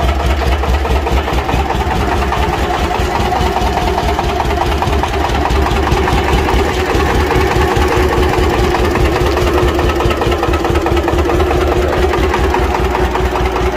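The engine of a motorised sugarcane-juice cart, the one engine that both moves the cart and drives its cane crusher, running steadily at a low, even pace with a pulsing rumble.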